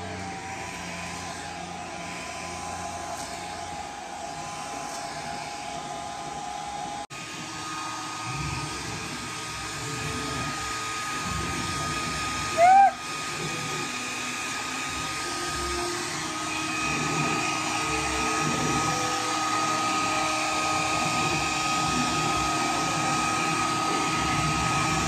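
Hand-held hair dryer running on high, a steady blowing hiss with a steady whine, blowing out hair through a paddle brush. The sound drops out suddenly for a moment about seven seconds in, and a short, loud squeak rising in pitch sounds about halfway through.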